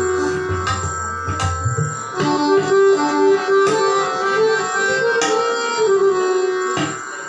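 Harmonium playing a melodic line in raag Saraswati, its reeds sounding held notes that move step by step, with tabla accompanying in a few scattered strokes.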